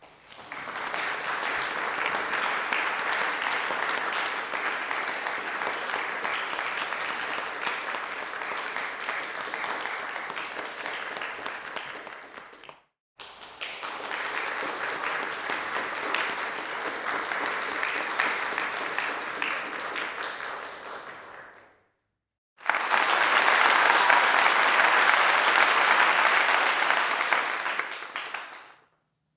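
Crowd applause: a large audience clapping in three separate takes. Each fades away and is cut off by a brief silence, and the third, starting about two-thirds of the way in, is louder than the first two.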